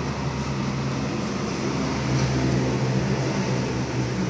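Steady low mechanical hum with an even hiss, swelling slightly about halfway through.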